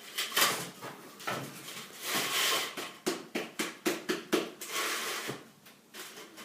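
Short, irregular scrapes and clicks of a tool working along a plastic corner bead, clearing away excess mortar.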